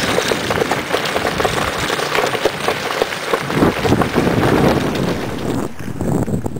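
Wheels of a husky-drawn dog cart rolling and rattling over a leaf-strewn gravel trail, with crunching footsteps and wind buffeting the microphone; about five and a half seconds in the crunching gives way to a softer rolling sound.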